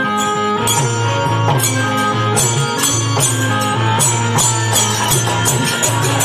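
Live Bhojpuri stage band music with no singing: a melody line over a steady, even drum beat and a repeating bass pattern.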